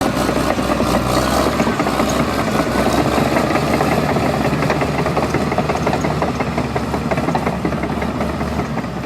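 A heavy construction vehicle's engine running steadily, with a dense, fast knocking rattle.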